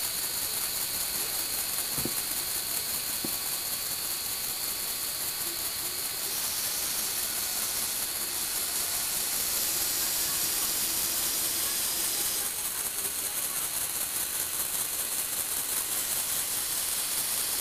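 Lego Technic electric motors whirring steadily through their plastic gear trains as they drive the platform that turns and tilts the model car, the tone changing about six seconds in and again near the end.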